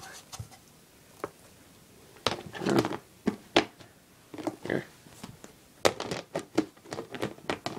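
Clear plastic 6-quart tubs being handled and shifted: a scatter of clicks, light knocks and short plastic rustles.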